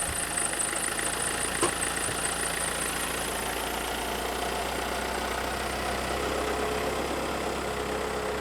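A vehicle engine idling steadily, with one short click about one and a half seconds in.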